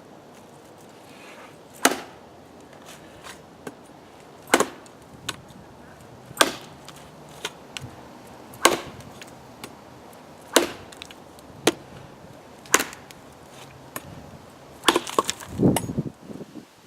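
Machete blade chopping into wood: sharp single strikes, about one every two seconds, then a quicker flurry of knocks near the end.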